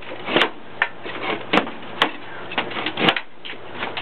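A run of irregular sharp knocks and clatters, about six in four seconds, as of hard objects being handled and set down, over a faint steady hum.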